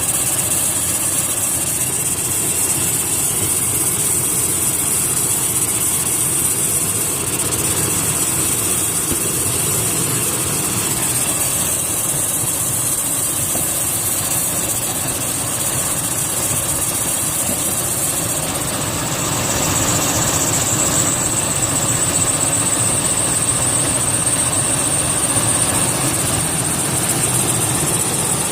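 Car engine idling, with a high-pitched whine from the accessory belt drive, the noise being checked to tell a worn belt from a bad pulley bearing. A little past halfway the high tone drops slightly in pitch and grows louder and steadier.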